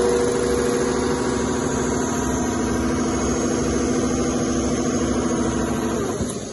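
Two-head CNC leather stitching machine running, the sewing heads working at about 800 stitches a minute with a steady mechanical hum and whir; the hum drops away near the end.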